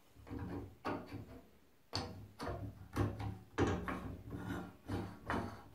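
Handwheel being fitted and turned on the threaded spindle of a wood lathe's tailstock: a run of short rubbing, scraping strokes, about two a second.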